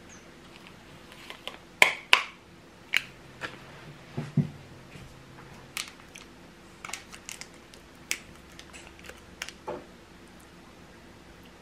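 Crinkling and tearing of a small paper stick packet of powder being opened by hand, with scattered sharp clicks and taps. The loudest is a pair of snaps a little under two seconds in.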